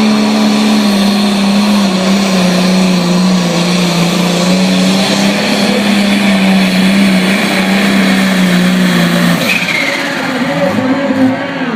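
Ford 9000 pulling tractor's turbocharged diesel engine running hard under load as it pulls the sled, its pitch sagging slightly as the load builds. About nine and a half seconds in the throttle is chopped: the engine drops off and a high turbo whine falls away.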